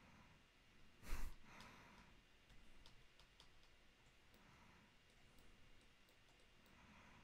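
Near silence with faint, scattered computer mouse clicks, and one short breath out onto the microphone about a second in.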